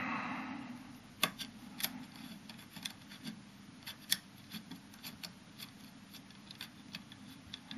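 Faint, irregular little metallic clicks and ticks as a threaded bearing cap is turned by hand with a small tool into a Super Gyroscope's metal frame, after a brief soft rustle at the start.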